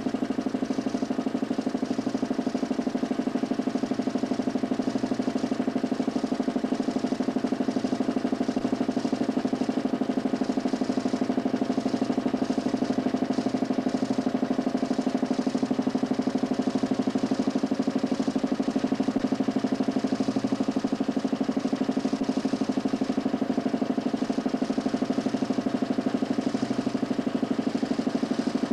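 DC motor spinning a large 40 cm plywood Nipkow disc in a homemade mechanical television, giving a steady hum with a fast, even pulsing that holds constant.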